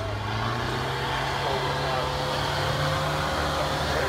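Turbo-diesel Toyota Hilux LN106 engine running steadily under load as the truck crawls up a steep, rocky climb, its note rising slightly partway through. Voices can be heard in the background.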